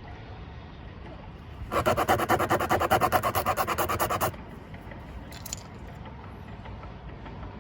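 Rapid rhythmic rasping, about five strokes a second for roughly two and a half seconds starting about two seconds in, as a tyre plug kit's rasp tool is worked in and out of the puncture to ream it.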